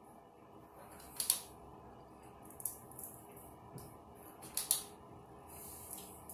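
A flat iron clamping and sliding through hair: a few short, hissy rustles and clicks, the two loudest about a second in and about four and a half seconds in.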